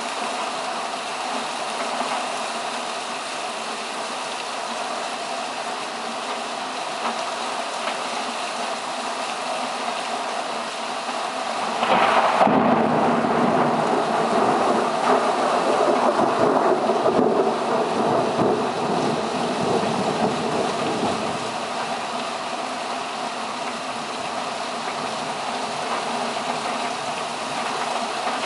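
Steady heavy rain with a thunderstorm overhead. About twelve seconds in, a long peal of thunder breaks suddenly and rolls on for several seconds before fading back into the rain.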